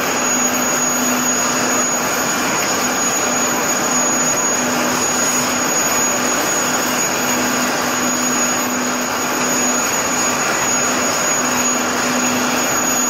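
High-pressure water jet at 250 bar cleaning boiler tubes: a loud, steady hiss with a low hum that comes and goes.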